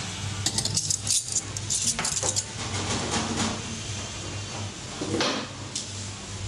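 Cutlery and crockery clinking, a quick flurry of light clicks in the first couple of seconds, over a steady low hum.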